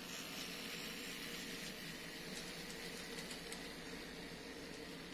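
N scale model train of BL2 diesel locomotives hauling a string of cabooses, running along the track: a steady faint motor hum with scattered light ticks from the wheels on the rails.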